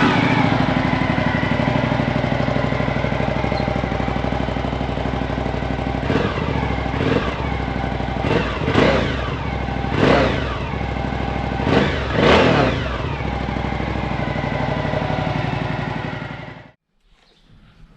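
Suzuki V-Strom 1050 XT's V-twin engine running on its stock exhaust: idling steadily, then blipped in a series of quick revs that rise and fall, and stopping suddenly near the end.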